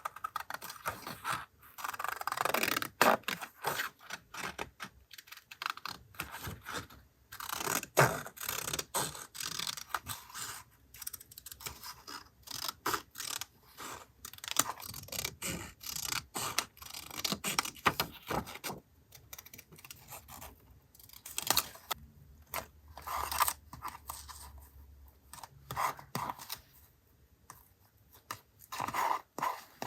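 Paper journaling materials being handled by hand: irregular rustling, scraping and small clicks of paper and stickers.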